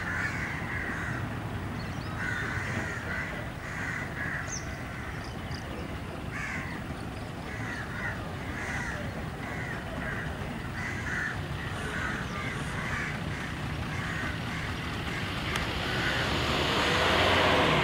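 Birds calling in short repeated calls, about one or two a second, over a low steady rumble. In the last couple of seconds a motorboat's engine and the water noise swell as the boat comes up close.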